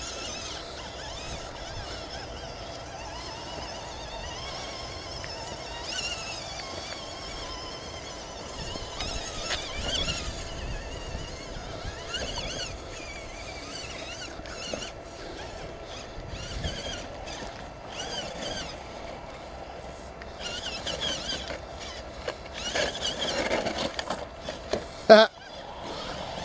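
Electric motors and gear drives of radio-controlled scale crawlers whining, the pitch wavering and swelling with the throttle as they crawl over rocks and concrete steps. A single sharp knock near the end.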